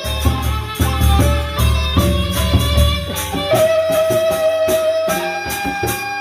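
Lombok gendang beleq ensemble playing a fast gamelan piece: big double-headed drums beating with rapid, even cymbal clashes and ringing gong and metallophone tones. The deep drum beats drop out briefly past the middle while one ringing tone holds, then come back.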